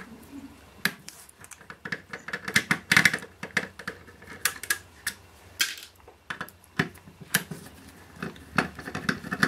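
Screwdriver backing screws out of a steel shield box: a string of small, irregular metal clicks and taps. The screws occasionally knock against the box.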